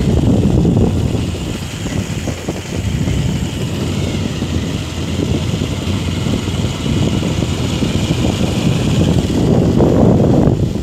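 Motorcycle riding along, its engine running under heavy wind rumble on the phone's microphone.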